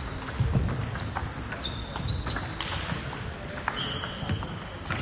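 Table tennis rally: the celluloid-type plastic ball clicks sharply off the bats and the table at an irregular pace, about every half second to a second, with short high squeaks from shoes on the sports-hall floor.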